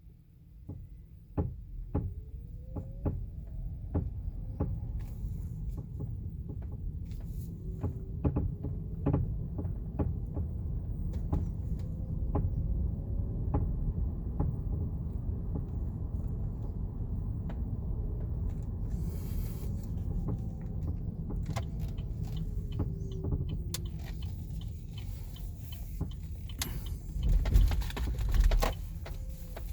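2018 Chevrolet Bolt EV's front suspension creaking and clicking over and over against steady road rumble, with a faint whine that rises and falls. The creak is still there after the stabilizer bar and right stabilizer link were replaced, so that repair has not cured it.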